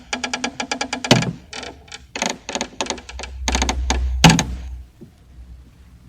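Wooden coffin creaking in fast runs of ticks as it is handled. Two heavy wooden knocks, about a second in and just after four seconds, the second over a low rumble.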